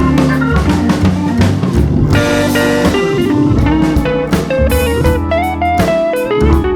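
Background music: a blues-style band with guitar and drums.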